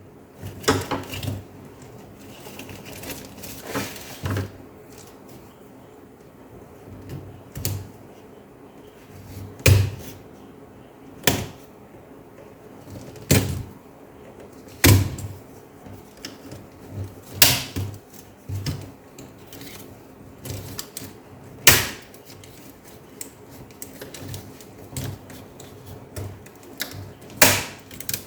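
Sharp plastic clicks and snaps, about one every second or two and irregular, as a laptop keyboard is pried out of its plastic retaining latches one latch at a time.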